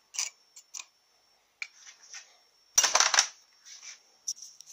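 Light metallic clicks and clinks from steel Powerglide transmission parts, the output shaft and drum, being handled and fitted together over a metal tray, with a burst of louder clanks about three seconds in.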